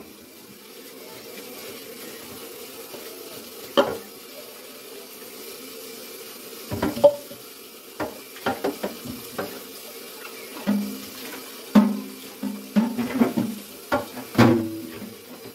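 Kitchen tap running steadily into the sink while clear plastic refrigerator drawers are washed, with scattered knocks and clatters of the plastic drawers against the sink, getting busier in the second half.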